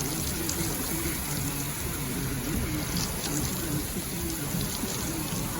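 Steady hiss of hurricane rain pouring down, with a low, wavering hum underneath.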